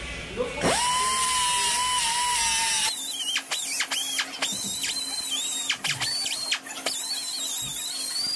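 Air die grinder cleaning surface rust from a brake caliper bracket. It spins up to a steady whine, then about three seconds in runs higher, its pitch dipping again and again as it bites into the metal.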